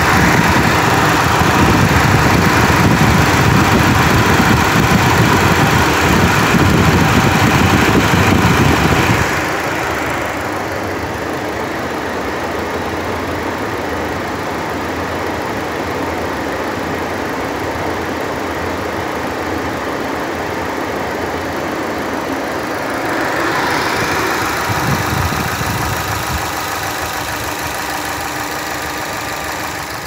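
Electric radiator cooling fan running with the Ecotec engine idling: a steady rushing whoosh that drops abruptly about nine seconds in and swells again later. The fan has switched on with the coolant at about 105 °C and is pulling the temperature down.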